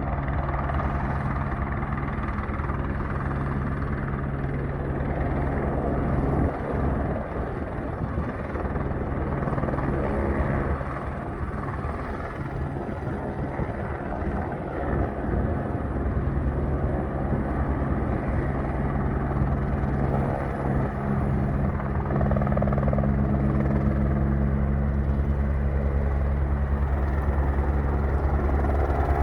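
Firefighting helicopter's rotor and engine running steadily with a fast, low beating, growing louder about two-thirds of the way through.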